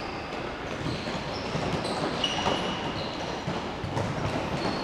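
Futsal play echoing in a large sports hall: shoes squeaking now and then on the court and a few light ball knocks over a steady hall din.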